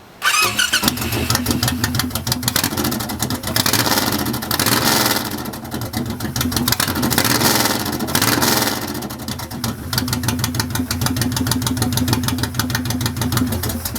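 Honda VTX V-twin cruiser motorcycle with an aftermarket exhaust, running at idle with the throttle blipped twice in the middle. The sound comes in suddenly just after the start and cuts off near the end.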